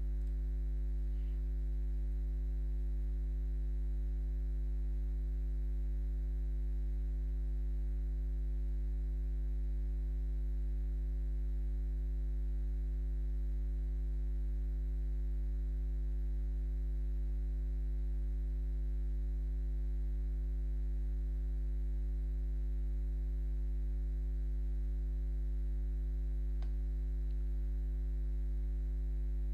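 Steady low electrical mains hum with a buzz of overtones, picked up by the recording microphone.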